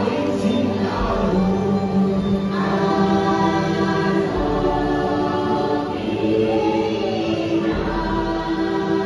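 The ride's choral soundtrack: a choir singing a slow chant in long held chords that shift every second or two.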